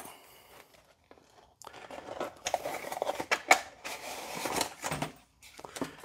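Plastic bag and paper packaging crinkling and rustling as they are handled, starting about a second and a half in and dying away about five seconds in, with a few small clicks.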